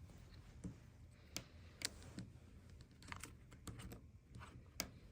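Scattered small clicks and taps of an Apple Watch Ultra and its band being handled as the band is fitted to the watch case, a few at a time and irregular.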